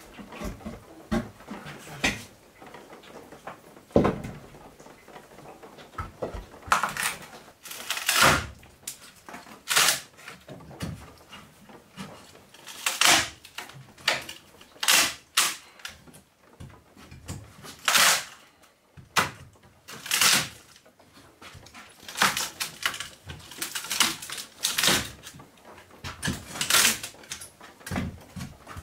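A wooden cover batten being pried off the seams of a log wall with a crowbar: repeated creaks and cracks as the wood splits and tears away from the logs. The sounds come in short bursts a second or two apart.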